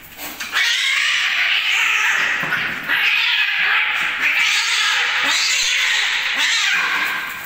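Two domestic cats fighting: loud, harsh screeching and yowling in a few long stretches with brief breaks, fading near the end.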